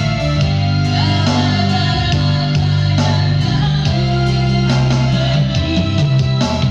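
A song: a singing voice over guitar and bass accompaniment, loud and continuous.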